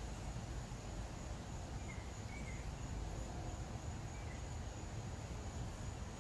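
Steady outdoor background noise: a low rumble with a faint, steady high-pitched tone over it and a few faint short chirps.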